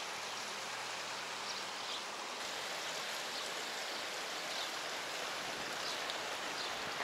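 Steady rush of running water, an even hiss with no breaks, with a few faint short high chirps now and then.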